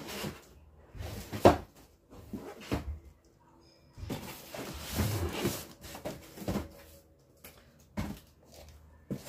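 Cardboard boxes being fetched and handled: a series of irregular knocks and rustles, the sharpest about a second and a half in, with a longer scraping rustle from about four to six seconds in.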